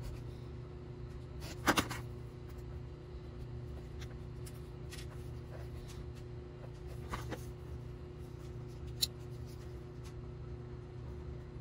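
A snap-off utility knife scoring and cutting thin styrene plastic sheet: faint scratching with a few sharp clicks, the loudest a double click about two seconds in. A steady low hum runs underneath.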